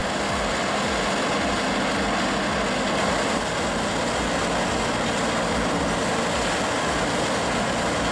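A heavy wood-processing machine running with a steady, even noise of engine and material throughout.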